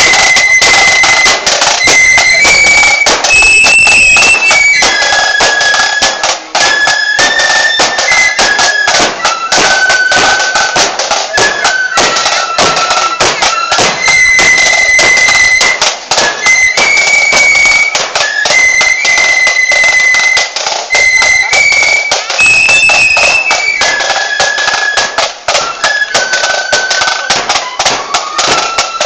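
Marching band playing a shrill melody of held notes on high-pitched wind instruments over continuous drumming.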